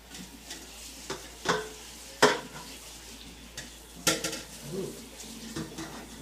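Dishes and cutlery clinking and knocking while being washed at a kitchen sink: several sharp clinks, the loudest a little over two seconds in.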